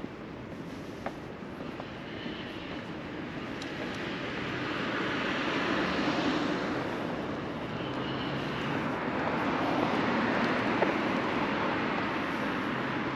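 Road traffic going by on a multi-lane road: the noise of passing vehicles swells and fades twice, peaking about six seconds in and again near ten seconds.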